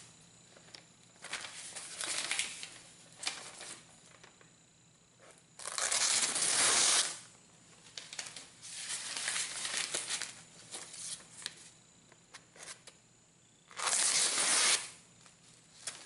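Freshly sharpened chef's knife of old scythe steel slicing through paper in a sharpness test: two longer cutting strokes of about a second each, about six and fourteen seconds in, with paper rustling and crinkling between them. The blade drags a little in the paper.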